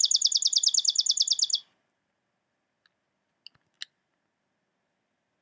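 Chipping sparrow singing its song, a fast, even, dry trill of high chips, about a dozen notes a second, that stops about a second and a half in. A few short, sharp sounds follow near the middle.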